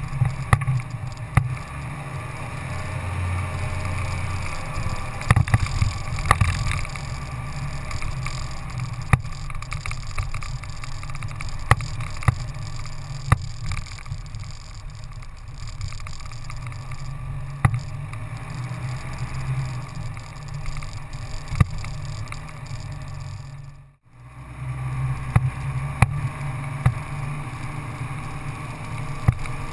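Off-road vehicle engine droning steadily while riding along a bumpy sand track, with frequent sharp knocks and rattles from the bumps. The sound drops out for a moment about four-fifths of the way through.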